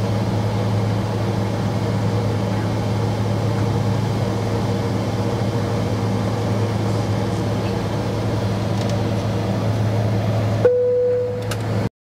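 Cabin noise of a Boeing 767-300 taxiing with its engines at idle: a steady rushing noise over a constant low hum. Near the end it drops suddenly, with a click and a short steady tone, and then cuts off to silence.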